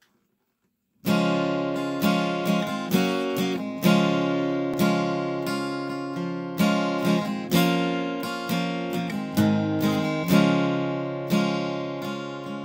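Acoustic guitar strumming chords, each one struck sharply and left to ring out, starting after about a second of silence.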